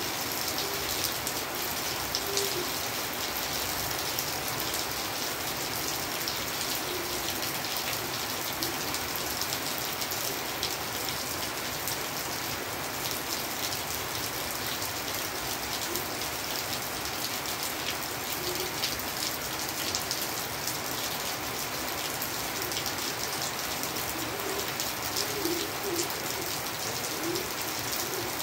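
Steady rain falling on surfaces, an even hiss with fine drip ticks. A few short, low bird calls come through it now and then, most near the end.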